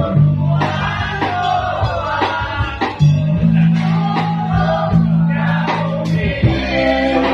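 A live band playing a song, with singing over bass and drums. The bass holds long steady notes.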